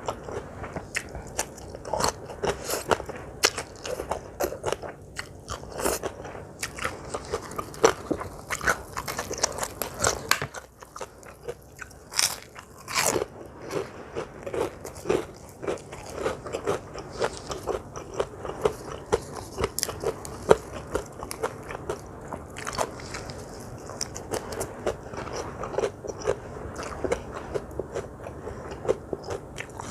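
Close-miked eating: repeated crisp crunching and chewing of crunchy food, with a few louder crunches about halfway through.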